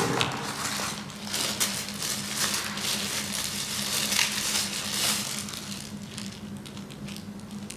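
Plastic packaging crinkling and crackling as it is handled and unwrapped, with many small sharp crackles.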